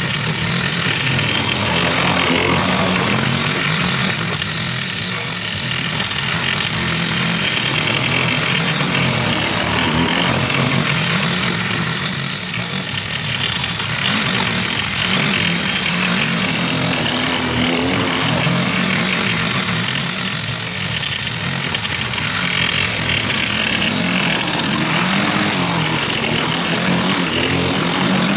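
Lawn mower engine running steadily while mowing, its note swelling and dipping slightly every several seconds as the load on the blade changes.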